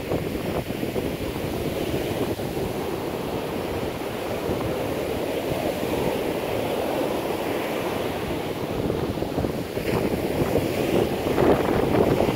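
Wind buffeting the microphone over the steady wash of surf breaking on the beach. The wind gusts harder near the end.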